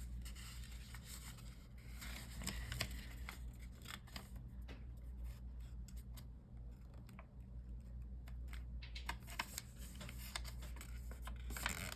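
Origami paper being folded and creased by hand, with light irregular rustling and short crisp creasing clicks.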